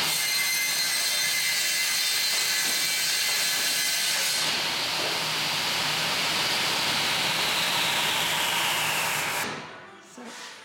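Elcon vertical panel saw running with its dust extraction, cutting through an OSB board: a loud, steady whine whose pitch slowly falls. It stops suddenly about nine and a half seconds in.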